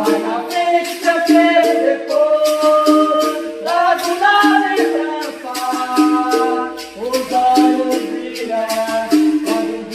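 Capoeira music: a caxixi shaker rattling in a steady quick rhythm over held notes from the berimbau and voices, changing pitch every half second or so.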